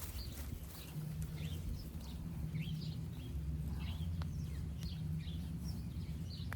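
Birds chirping in short, repeated upward chirps over a steady low hum that starts about a second in, with one sharp click midway.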